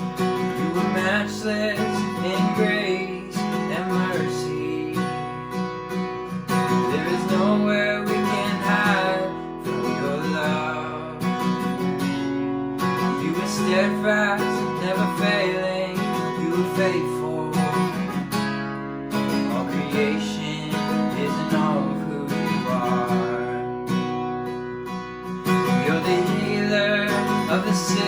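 Acoustic guitar strummed steadily, playing a song's instrumental intro.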